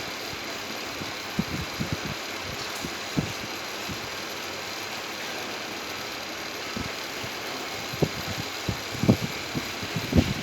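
A machine running with a steady, noisy whir, with scattered short low knocks that come more often near the end.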